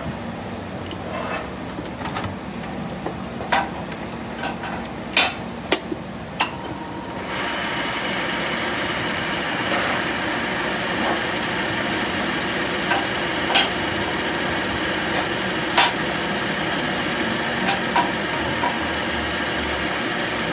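Sharp metal knocks and taps from hand tools in a workshop, then a machine starts running steadily about seven seconds in, with a few more knocks over its even running noise.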